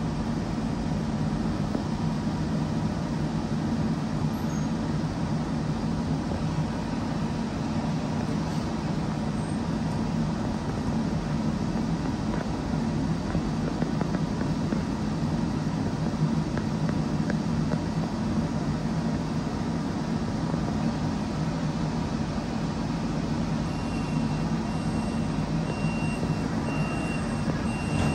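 Steady hum inside a streetcar standing at a stop: its onboard equipment and ventilation running with a low drone. Near the end a short high beep repeats several times.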